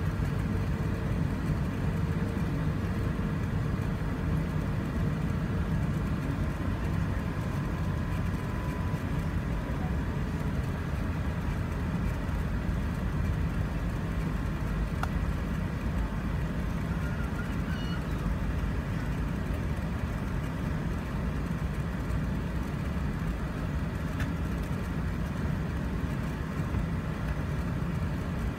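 Steady low rumble of an Airbus A380's Rolls-Royce Trent 900 engines at taxi thrust, heard inside the cabin over the wing as the airliner taxis.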